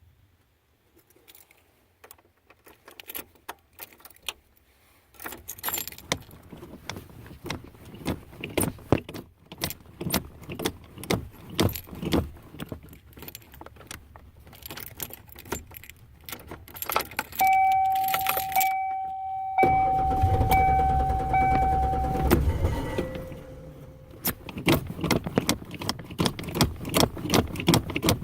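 Keys jangling and rattling for much of the time while someone tries to start a hard-starting Ford Ranger. A steady electronic tone sounds about 17 seconds in, and from about 20 seconds the truck's starter cranks the engine for a couple of seconds before the jangling and clicking resume.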